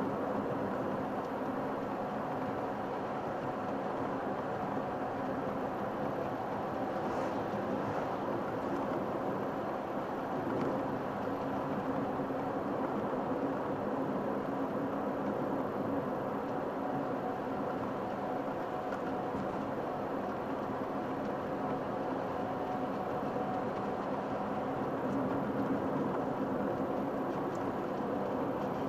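A car driving at steady speed, heard from inside the cabin: engine hum with a few steady tones over an even rush of tyre and road noise.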